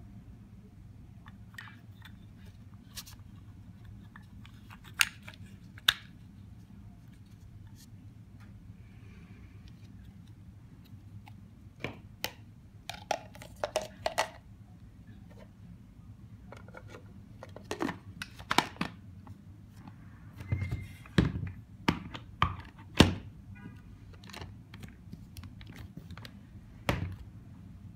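Plastic parts of a Beaba Babycook baby food maker being handled and fitted together by hand: scattered clicks and knocks, a few early on and a busier run of sharper knocks in the second half.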